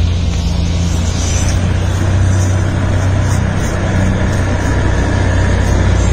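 A truck engine running with a steady low rumble as it comes up the road.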